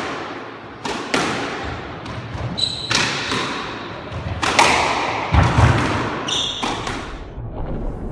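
Squash ball being struck by rackets and smacking off the court walls during a rally: a string of sharp hits, irregularly spaced, each ringing out in the court's echo.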